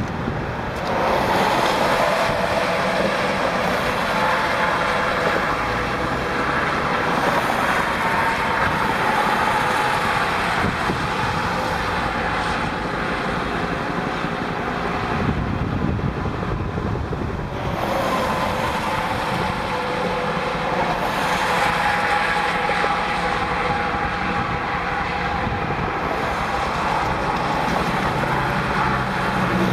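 Steady interstate traffic noise from cars and semi trucks passing below: a continuous rush of tyres and engines, with a whining tyre tone that swells as vehicles go by and dips briefly about halfway through.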